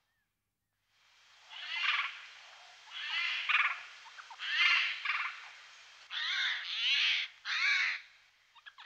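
Eurasian jay calling repeatedly: about five calls, each under a second, some in quick pairs, starting about a second and a half in.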